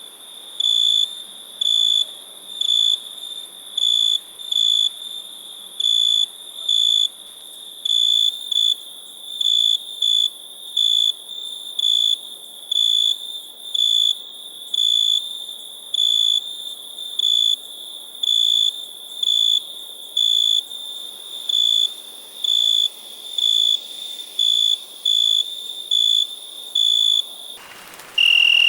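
Cricket chirping: short, high-pitched chirps repeated steadily about once a second over a constant high hiss. Near the end the chirping breaks off with a brief burst of hiss and one lower chirp.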